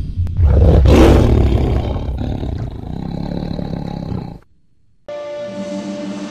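Tiger roar sound effect over intro music, loudest about a second in and fading away. After a short gap of near silence, music with steady held notes begins.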